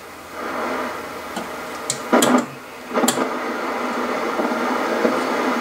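Steady static hiss from the speaker of a 1960s Canadian Marconi portable vacuum tube TV, switched on and warmed up with no station tuned in. The hiss dips briefly about halfway through. A few sharp clicks come from the set's side control knobs being turned, about two and three seconds in.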